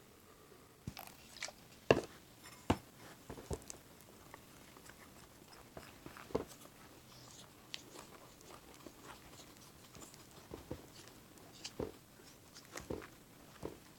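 Pink fluffy slime (glue and shaving-cream foam) being stirred as contact lens solution is worked in to activate it: irregular sticky squelches and small wet clicks, with a couple of sharper ones about two seconds in.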